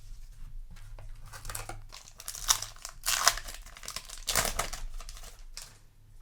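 Foil booster pack wrapper crinkling and being torn open by hand, in several irregular bursts of rustling.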